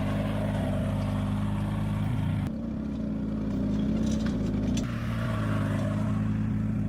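ATV engine running at a steady pitch, with a short dip in level about two and a half seconds in.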